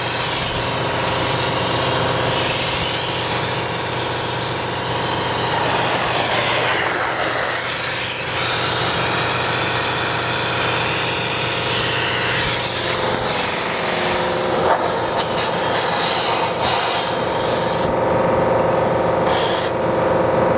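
Two-component spray foam gun hissing steadily as insulation foam is sprayed into the wall cavities, over a steady mechanical hum from the spray rig. Near the end the spray cuts off and comes back in a few short bursts.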